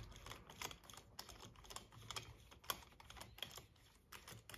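Faint, scattered light clicks and ticks of a hand screwdriver turning a mounting screw on a router edge guide.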